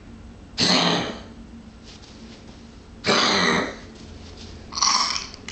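A pet coughing: three separate coughs, each about half a second long, spaced two to three seconds apart.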